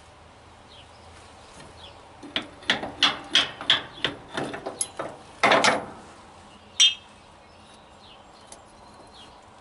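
Hammer knocking a steel leaf spring shackle side plate off its pins on a heavy truck: about eight quick strikes over some three seconds, then one more sharp knock about a second later.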